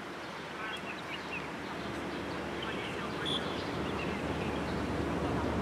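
Steady outdoor background noise with a few faint, short, high calls; the noise grows slightly louder toward the end.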